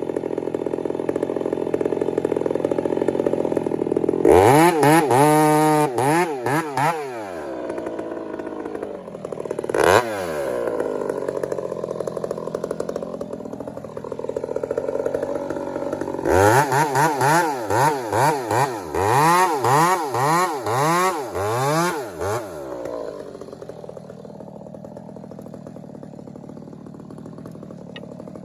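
Chainsaw running, its engine revved up and down in repeated bursts a few seconds in, once more near the middle, and in a long run of throttle pulses through the second half, then dropping back to a quieter idle near the end.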